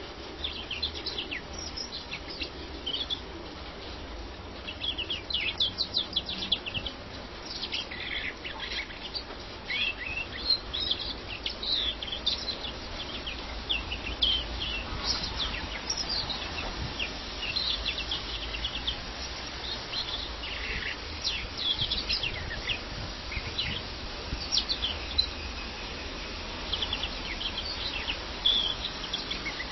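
Caged European greenfinch singing: fast twittering phrases of short, high chirps and trills, coming in bursts with brief pauses, over a low steady rumble.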